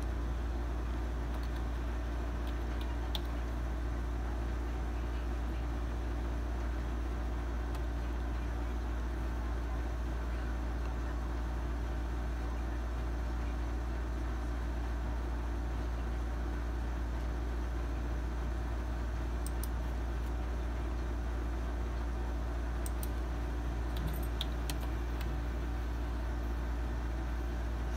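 Steady low hum of room noise with a few faint, short clicks.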